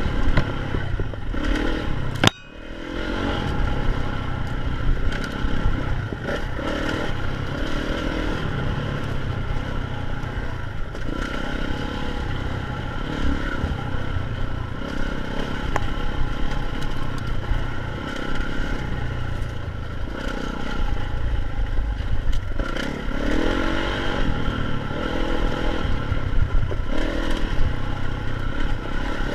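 Dirt bike engine running while the bike rides a rough trail, with rattling and clatter from the bike over the ground. The sound drops out sharply for a moment about two seconds in.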